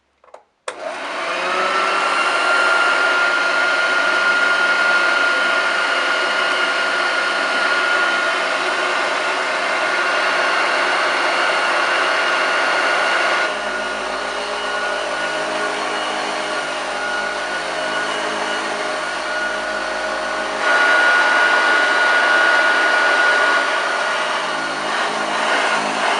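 A 1975 Hoover Junior 1346A upright vacuum cleaner is switched on about a second in, and its motor runs up to a steady high whine. About halfway through, the sound drops lower and deeper for several seconds. It then returns to the louder, higher whine.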